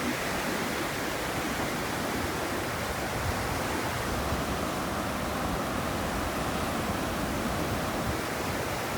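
Steady rushing of natural water, an even hiss that holds at the same level without surges or breaks.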